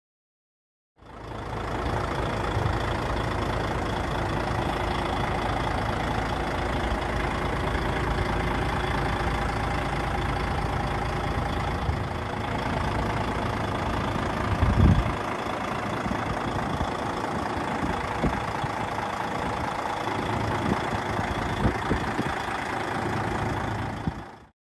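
DAF XF105 460 tractor unit's diesel engine idling steadily. There is one sharp thump about halfway through and a few lighter knocks near the end.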